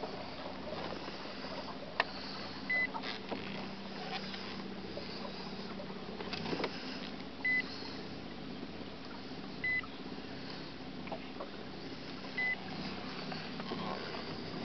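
Minn Kota electric trolling motor humming steadily, with four short high beeps a few seconds apart from the boat's fish finder.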